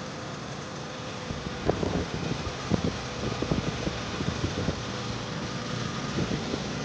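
A Mercedes-Benz ML320 that will not start: a steady fan-like whir with a faint steady tone, and a run of irregular clicks and knocks from about two seconds in, with no starter cranking and no engine firing.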